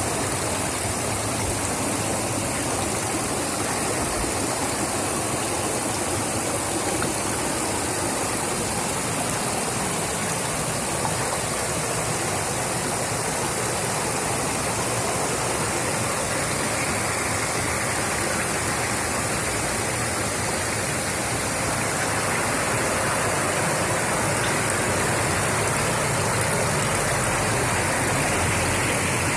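Small creek flowing and splashing over rocks: a steady rush of running water, slightly louder in the last few seconds.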